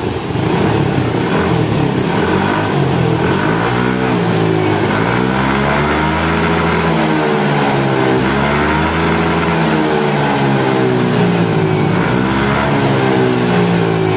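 Yamaha NMAX scooter's single-cylinder four-stroke engine running through its stock muffler, which had been gutted and has been rebuilt inside to sound close to original. The throttle is opened and closed in several slow swells, the pitch rising and falling, with an even, not noisy exhaust note.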